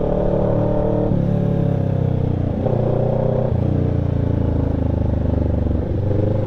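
Kawasaki Ninja 650 parallel-twin engine running through a newly fitted Villain shorty muffler, revved a little. The pitch drops about a second in, jumps up near the 3-second mark and drops again soon after. The exhaust note is free of rattle.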